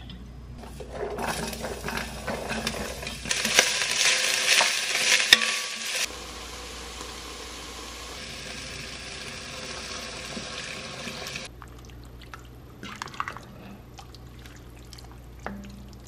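Diced carrot, celery and onion sizzling in oil in a Le Creuset enamelled cast-iron Dutch oven, with knocks and scrapes of stirring against the pot. The sizzle cuts off suddenly about two-thirds of the way through, leaving a few quieter stirring and pot sounds.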